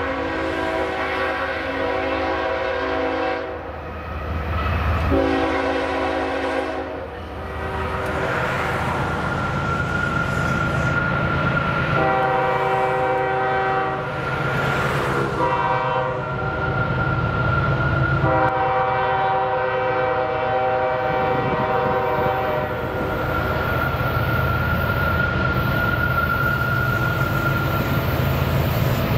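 CSX diesel freight locomotive sounding its chime air horn in four blasts, the second one shorter, as the train approaches a grade crossing, over the steady rumble of its engines, which grows louder near the end. A steady high ringing tone runs beneath the later blasts.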